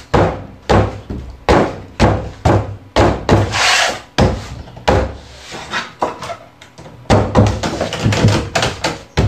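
Repeated heavy thuds of a wooden door being pounded, about one or two blows a second, with a quicker flurry of blows near the end: someone trying to force a locked door open, without success.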